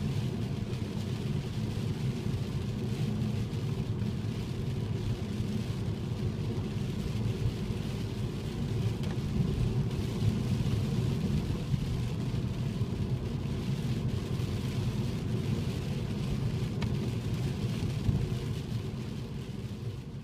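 Rain falling on a car with a steady low rumble of the car in motion. The sound fades down near the end.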